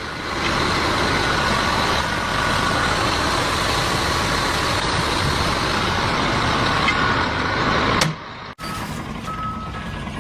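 Heavy construction machinery running with a steady, loud noise and a faint high tone over it. About eight seconds in it cuts off abruptly to a quieter stretch.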